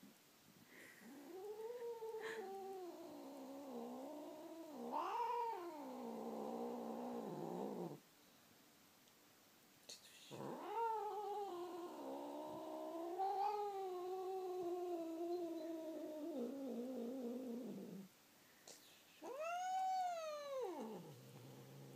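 Black cat yowling in long, drawn-out, wavering calls: two of about seven seconds each that sink low at their ends, then a short rising-and-falling call near the end. This is the cat's 'singing', which the owner says is not anger.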